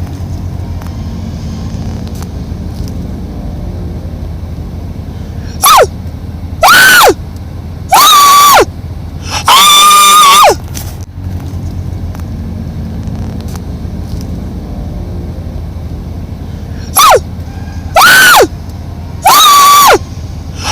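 An animal's loud, pitched calls, seven in two bouts: each rises quickly, holds a high note, then drops at the end, the longest lasting about a second. A steady low hum runs underneath.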